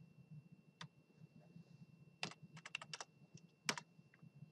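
Faint computer keyboard typing as a part number is keyed in: scattered keystrokes, with a quick run of about seven keys around two seconds in, then a louder single click.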